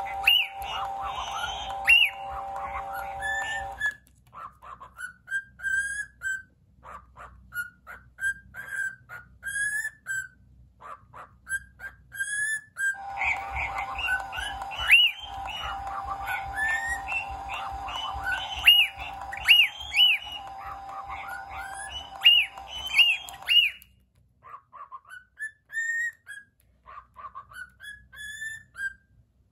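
A cockatiel calling in many short rising chirps and whistles, over a steady humming tone from a walking, sound-repeating plush unicorn toy. The tone runs for about the first four seconds, stops, and comes back for about ten seconds midway.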